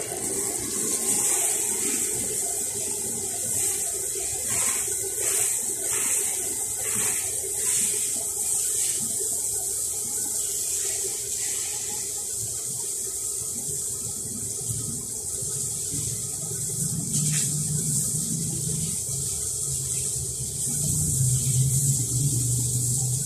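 Water spraying from a garden hose onto a wall and a tiled floor: a steady hissing spray with splashing. A low hum joins in about two-thirds of the way through.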